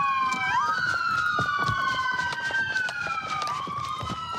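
Police car sirens wailing, more than one at once, each pitch sliding slowly down and then sweeping quickly back up, with scattered short knocks and clicks.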